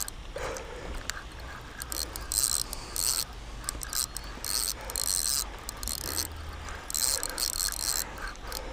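Fishing reel whirring and clicking in irregular short bursts while line is worked against a hooked catfish putting up a fight.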